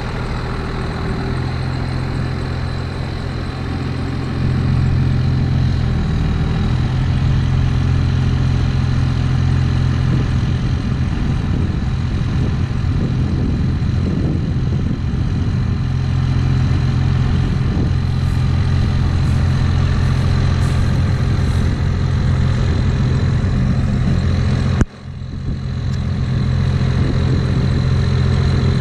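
Second-generation Dodge Ram pickup's engine idling steadily, a constant low hum that gets louder about four seconds in. Near the end the sound drops out for an instant, then comes back.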